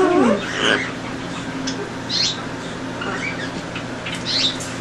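Pet parrots calling: a gliding call at the start, then short squawks and chirps several times, over a steady low hum.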